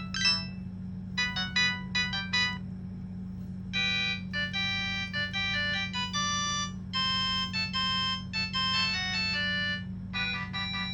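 Samsung SGH-T108 mobile phone ringtones playing in turn as electronic melodies. A tune ends right at the start, a short phrase follows, a new melody begins about four seconds in and another near the end, all over a steady low hum.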